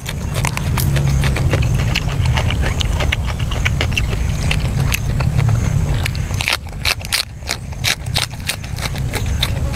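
Close-miked chewing: wet mouth clicks and crunching of food and raw greens, with sharper, more spaced clicks about six to eight seconds in.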